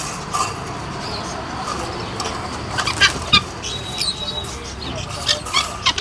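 Caged birds chirping and squawking, with short sharp calls about three seconds in and again near the end, and a brief steady high note about four seconds in.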